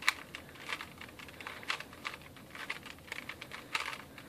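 3x3 Rubik's cube's plastic layers being twisted quickly through a last-layer algorithm: a rapid, irregular run of light clicks and clacks.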